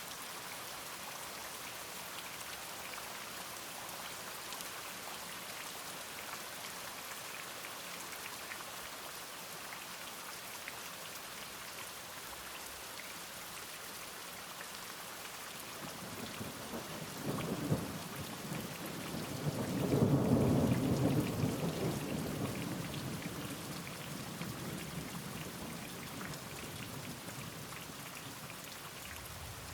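Steady rain falling, with a roll of thunder that builds about halfway through, peaks a few seconds later and slowly rumbles away.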